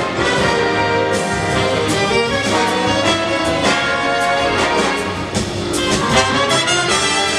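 Big band playing: the brass section of trumpets and trombones holding chords and lines over a drum kit's steady strokes and cymbal hits.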